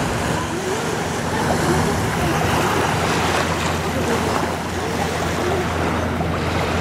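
Small waves lapping and washing on a sandy beach shore, a steady wash of water noise with a low hum underneath.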